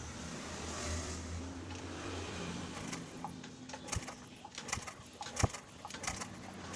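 A low steady hum, then from about halfway in a quick irregular run of sharp clicks and clinks from small hard objects being handled.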